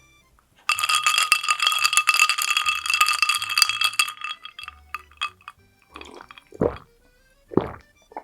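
Background music, with a dense crackling rustle starting about a second in and lasting about three seconds, then a few short soft plops.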